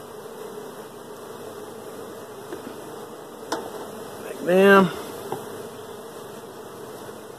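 Honeybees buzzing in a steady hum around an open Langstroth hive, with two sharp clicks of a hive tool scraping the bee-covered wooden inner cover, a little before and after the middle.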